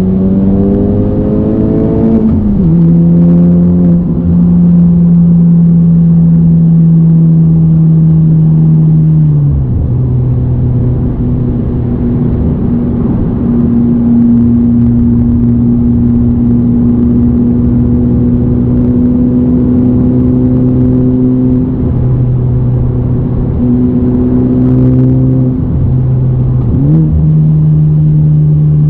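Honda Civic Type R FK8's turbocharged 2.0-litre four-cylinder, heard from inside the cabin through a J's Racing 70RS cat-back exhaust and RV6 front pipe. The engine revs up over the first two seconds, drops in pitch with an upshift, then drops again about ten seconds in and runs at steady cruising revs. The pitch steps back up a little before the end.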